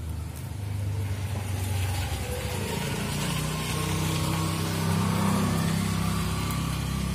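A motor engine running steadily, growing louder about a second in, its low hum stepping up in pitch about three seconds in.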